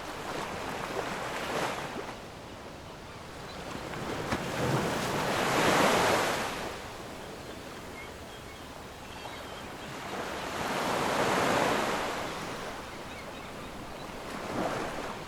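Sea waves washing onto the shore, four slow surges of hissing surf a few seconds apart.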